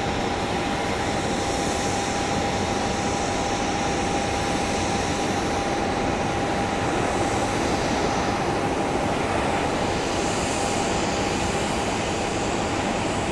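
Boeing 737-800's CFM56-7B turbofan engines running at low power as the jet rolls out along the runway after landing: a steady rush with one steady mid-pitched whine.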